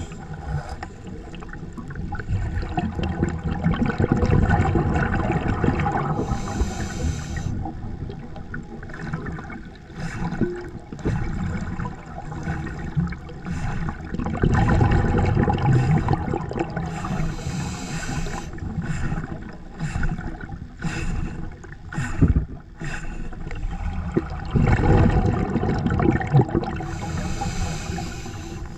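Scuba diver's regulator breathing underwater: exhaled bubbles rumble and gurgle for several seconds at a time, and a short high hiss of inhalation comes about every ten seconds, three times. A few sharp clicks and knocks of equipment come in the middle.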